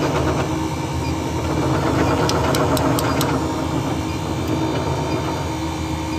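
Steady hum of a custard machine's running refrigeration unit (compressor and fan), with about five light, quick clicks around two to three seconds in.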